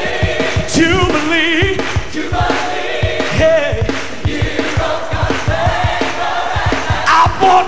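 Gospel choir singing with a lead vocalist over a full band with a steady drum beat.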